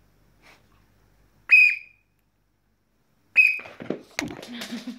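Two short, sharp whistle blasts, each a steady high tone under half a second long, about two seconds apart. Scuffling and clicking noises follow near the end.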